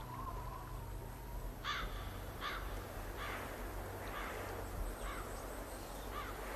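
A crow cawing about six times, roughly one caw a second, the later caws fainter.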